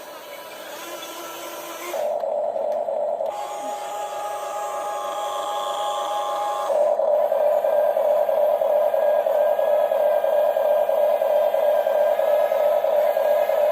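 Steady whine of a radio-controlled model excavator's small electric motors and gearboxes, getting louder about two seconds in and again near the middle.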